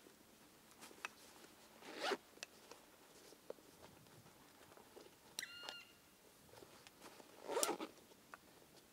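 A zipper on a small bag pulled twice, two short rasps about five seconds apart, among small clicks of gear being handled.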